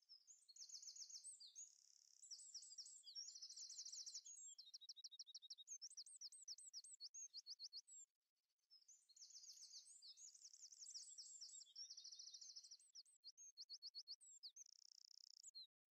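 Songbird singing faint, rapid high trills and chirps in two long phrases, with a short break in the middle. The second phrase cuts off suddenly near the end.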